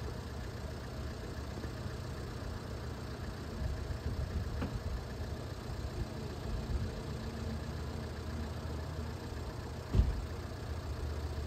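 Steady low background rumble, like a distant engine, with a single sharp knock about ten seconds in.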